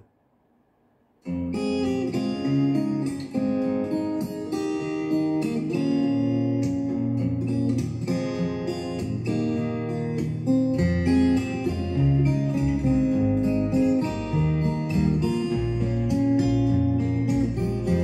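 Music: a break of near silence lasting about a second, then an instrumental passage on acoustic guitar with many picked notes over low sustained notes, and no singing.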